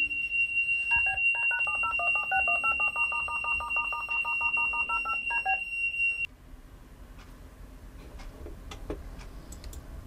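A smoke alarm sounds one continuous high-pitched tone while a telecare alarm telephone dials out: a rapid run of telephone keypad tones for about four seconds. Both stop abruptly about six seconds in, leaving quiet room tone with a few faint clicks.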